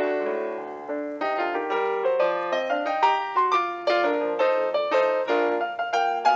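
Background piano music: a flowing run of struck notes, several a second, each dying away.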